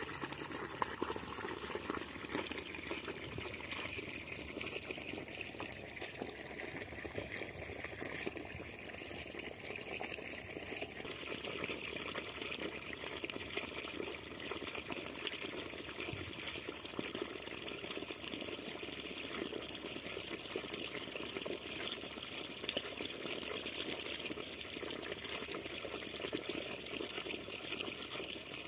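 Water from a garden hose pouring steadily into a shallow muddy puddle in a dirt irrigation channel, with a continuous splashing gush.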